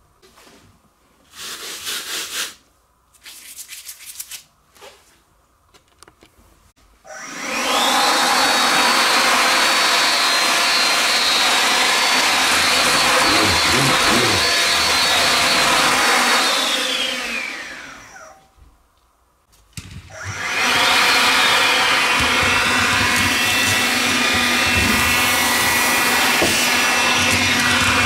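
A few brief clatters and rustles, then a Makita CL282FD 18V cordless brushless vacuum cleaner is switched on in Strong mode. Its motor whine rises as it spins up, it runs steadily, then it winds down with a falling whine and stops. After a short pause it starts again in Standard mode and runs steadily with a lower-pitched whine.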